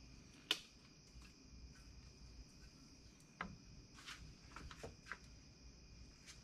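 Faint light clicks and taps of metal parts being handled as the VW Type 1 engine case halves are fitted together, the sharpest about half a second in, over a steady high-pitched whine.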